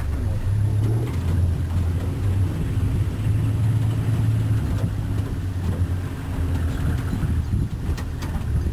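Vehicle engine idling, a steady low rumble.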